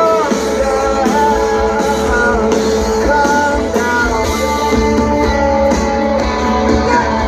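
Rock band playing live, a singer over guitar and bass.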